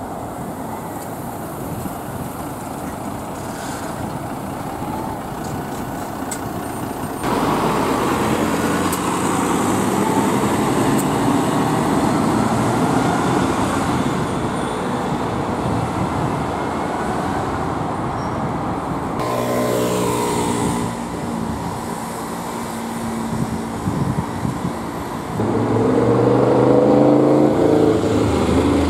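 Mercedes-Benz Citaro city bus running as it drives past, then the steady noise of road traffic. Later, a steady engine drone comes in, and near the end a rising whine as another vehicle pulls away.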